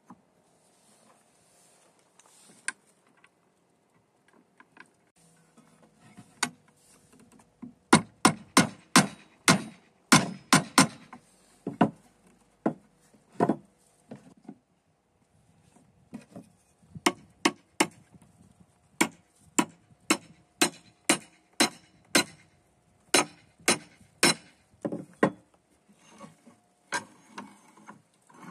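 Irregular sharp metal knocks from parts of a chain link fence machine being fitted together by hand: its shaft, pillow-block bearings and coil roller. The knocks come in two busy runs of roughly two a second, a few seconds in and again after a short pause.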